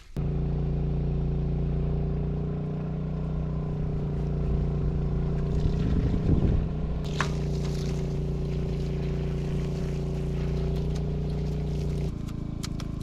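A motor running steadily at one pitch, its tone shifting slightly near the end. Around the middle there is a brief scrape, as a board is drawn over wet concrete.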